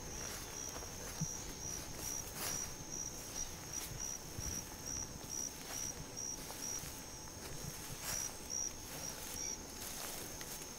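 An insect chirping in a steady pulsed rhythm, about three high chirps a second, stopping near the end. Footsteps swish and knock through wet grass.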